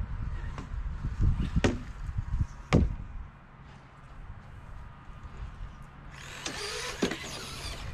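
Small electric RC car running on grass: a whirring motor with tyre hiss near the end. Before it there is a low rumble with two sharp knocks, about a second and a half and just under three seconds in.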